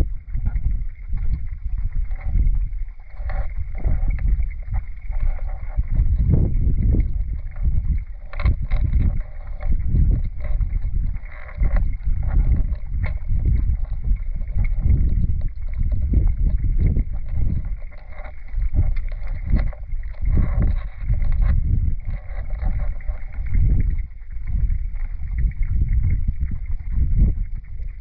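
Flowing river water heard underwater: a low, surging rumble that swells and ebbs every second or so, with faint scattered clicks.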